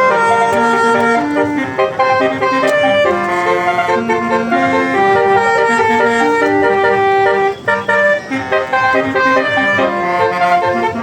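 Basuri multi-tone bus air horn playing a tune: a run of held notes stepping up and down in pitch, with a brief drop in loudness about three quarters of the way through.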